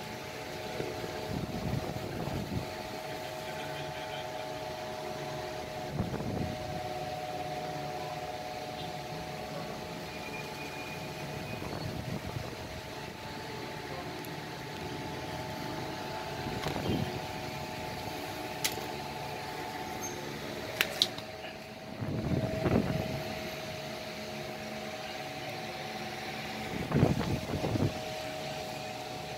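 A steady mechanical room hum holding two even tones, with a few soft handling bumps and a couple of sharp clicks a little past the middle.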